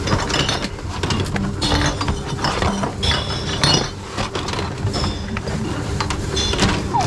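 Glass bottles clinking against each other as they are taken from a tub and pushed one after another into a reverse vending machine, over the whir and clatter of the machine's mechanism taking them in.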